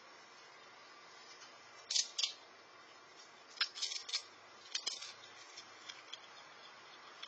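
Squirrel cracking and chewing peanut shells: clusters of short crisp crunches, loudest about two seconds in and again around four and five seconds in, with fainter ones after.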